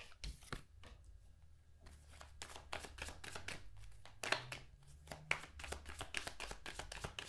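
A deck of tarot cards being shuffled by hand: a quick run of soft card flicks and clicks, with a brief lull about a second in, then denser from about two seconds in.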